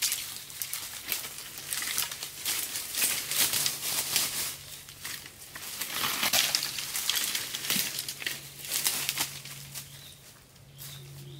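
Dry bamboo stalks, branches and leaf litter rustling and crackling as they are dragged, swung and handled, in dense irregular bursts, with footsteps on the dry leaves.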